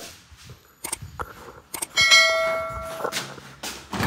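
A few short knocks, then about halfway through a single bell-like metallic clang that rings on and fades over about a second; a thump near the end.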